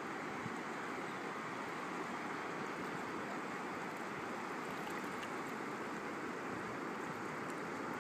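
Shallow water moving over a sandy bottom: a steady, even wash, with a few faint high ticks about halfway through.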